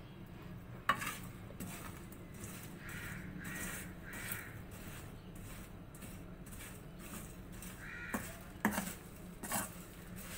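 A crow cawing three times in quick succession, then once more later, over the sharp scrapes and clinks of a metal ladle stirring peanuts and salt in an iron wok.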